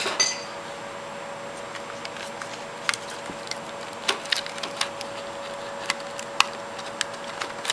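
Scattered light clicks and taps from handling a partly disassembled compact camera body, plastic and metal parts knocking together and against a wooden desk, irregular and a second or so apart after the first few seconds, over a faint steady hum.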